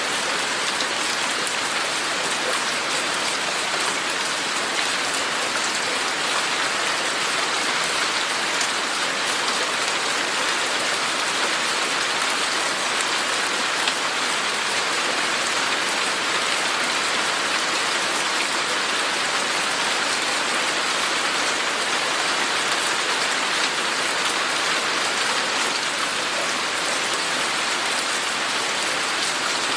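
Steady rain falling and pattering on surfaces, an even dense hiss of drops.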